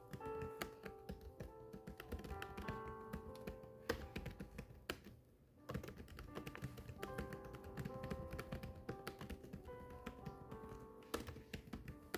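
Keyboard typing: a fast, irregular run of keystroke clicks with a short pause about five seconds in, over soft background music.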